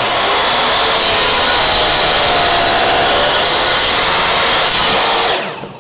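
Kobalt sliding miter saw running, its spinning blade cutting through a piece of wood with a loud, steady whine. The motor starts abruptly, gets a little louder about a second in, and is switched off near the end, its sound dying away.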